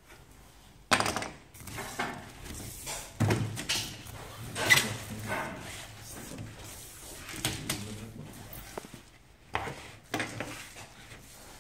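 Plastic strips and frame profiles for mosquito nets clattering and knocking on a workbench as they are handled: a scatter of irregular knocks and rattles.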